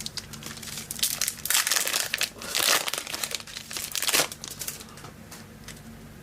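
Trading card pack wrapper crinkling as it is handled and torn open, in crackly bursts for about three seconds, then dying down.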